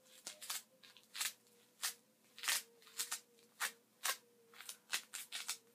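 Poise panty liner crinkling as it is rolled up between the hands: a run of short, sharp crinkles, two or three a second.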